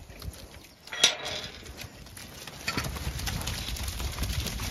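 A sharp metal clank about a second in, as a field gate is opened, then a flock of Zwartbles sheep hurrying out, many hooves trampling on a muddy lane, getting louder from about halfway through.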